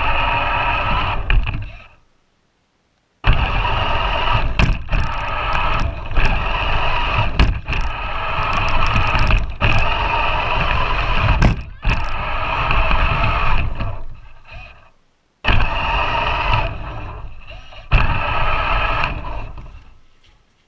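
Electric motor and geared drivetrain of a large battery-powered RC 4x4 truck whining under throttle over a low rumble as it pushes through snow, heard from a camera mounted on the truck. It runs in three spells, stopping dead when the throttle is let off about 2 s in and again about two-thirds through, with a few sharp knocks from the chassis.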